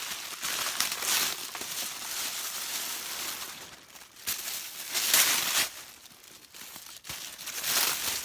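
Packaging crinkling as a purse is unwrapped, in three spells: a long one over the first few seconds, another about five seconds in, and a shorter one near the end.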